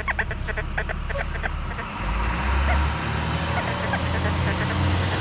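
XP Deus II metal detector giving a quick run of short beeps as it is swept over a target still in the hole, then a steady low rumble sets in about two seconds in.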